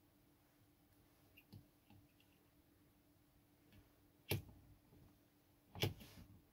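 Handling noise as an 18650 battery pack and its wires are moved about by hand on a workbench: a few faint clicks, then two sharper knocks about four and six seconds in.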